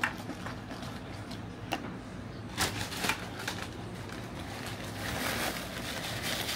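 Metal spoon clinking against a ceramic bowl a few times, then a rustling patter as granola is poured into the bowl near the end, over a low steady hum.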